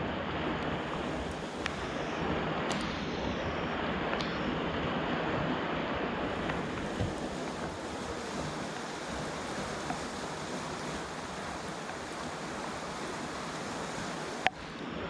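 Steady rush of floodwater pouring over a reservoir dam's spillway, with one sharp click near the end.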